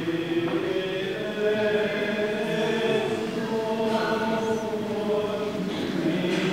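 Voices singing Byzantine-rite liturgical chant in slow, long-held notes.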